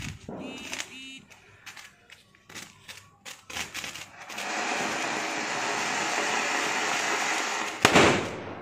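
Scattered crackling pops, then a Diwali fountain firework (anar) spraying sparks with a steady hiss for about three and a half seconds. A single loud bang comes near the end.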